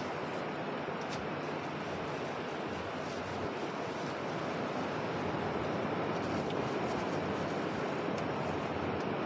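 Steady rush of sea waves and wind, with a few faint clicks.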